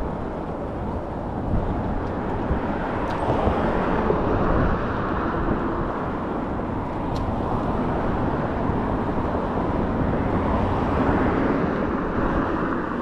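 Steady wind rushing over the microphone, with road noise from riding a folding e-bike.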